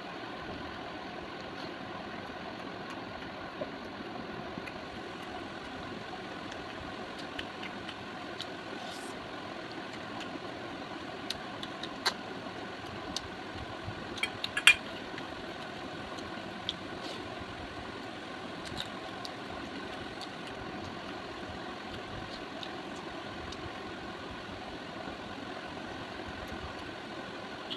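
A steady mechanical hum runs throughout, with scattered small clicks and taps from eating. The sharpest tap comes about halfway through.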